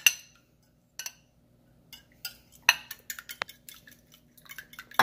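Metal wire whisk beating raw eggs in a ceramic bowl, its wires clicking against the bowl's sides: a few spaced strokes at first, then quick irregular strokes from about three seconds in.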